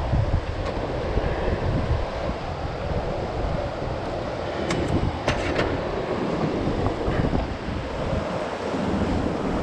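Wind buffeting the microphone in uneven gusts, with a few brief sharp clicks about five seconds in.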